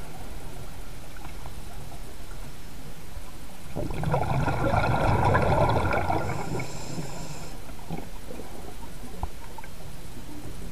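Scuba diver's exhaled bubbles gurgling past an underwater camera: one rush of bubbles about four seconds in, lasting about three and a half seconds. A steady underwater hiss runs beneath it.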